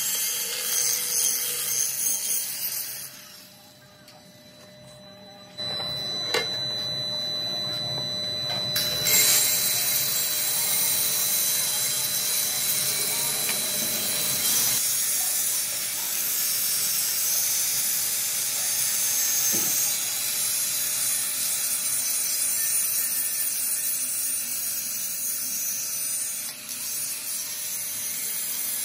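Angle grinder grinding the outer surface of a cast iron truck brake drum with an abrasive disc. The grinding noise drops away for a couple of seconds a few seconds in, then starts again suddenly and runs on steadily with a faint whine.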